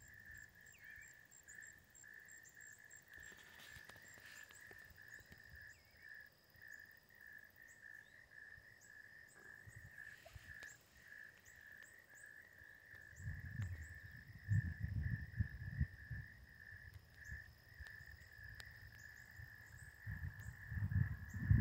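Steady, pulsing insect chorus in the field, with faint higher chirping above it. Low rumbling gusts of wind hit the microphone about halfway through and again near the end, where they are the loudest thing.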